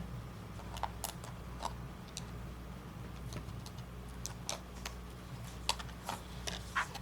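Scattered light clicks and taps as a replacement laptop screen panel is handled and brought into place on a Dell 3120, over a low steady electrical hum.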